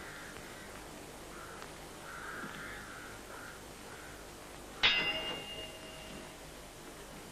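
Two steel swords clash once, about five seconds in, and the blades ring with a clear metallic tone that fades over about a second.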